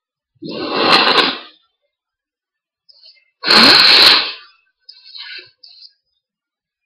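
A person sneezing twice during a hay fever sneezing fit, two loud sneezes about three seconds apart, the second louder and sharper.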